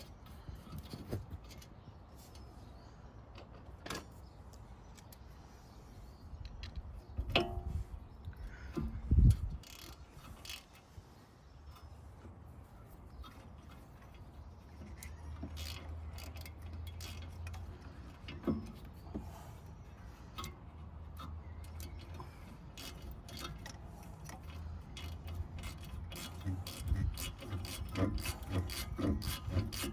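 Hand tools working on a car's front brake caliper and hub: scattered metallic clicks and knocks, with one heavy knock about nine seconds in. Rapid rasping and scraping builds up near the end.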